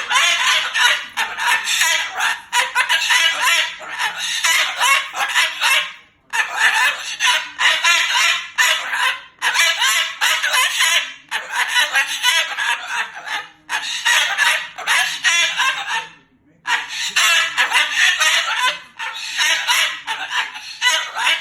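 Moluccan cockatoo calling loudly in long bouts of a few seconds each, with short pauses between them.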